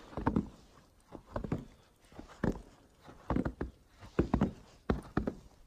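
Footsteps on the snow-dusted wooden planks of a suspension bridge: a string of dull thuds at a steady walking pace.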